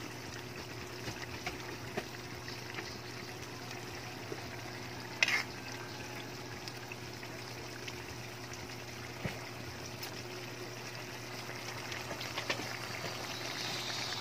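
Ginataang sitaw (string beans in coconut milk) simmering in a wok, a steady bubbling hiss with small pops, and one brief sharp knock about five seconds in. Near the end a ladle starts stirring through the beans.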